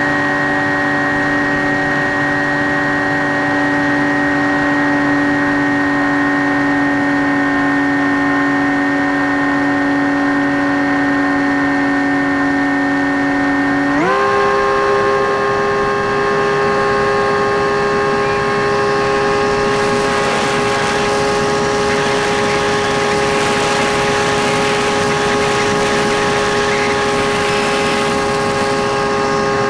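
Electric motor and propeller of a Skywalker X5 flying wing, heard from its onboard camera, droning at a steady pitch. About halfway through the pitch jumps sharply higher as the throttle is raised, and wind hiss builds in the second half.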